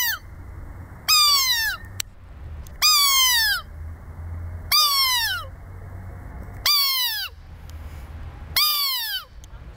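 A thin strip of birch bark blown as a reed call, giving a bird-like squeal. Five calls come about every two seconds, each starting high and sliding down in pitch.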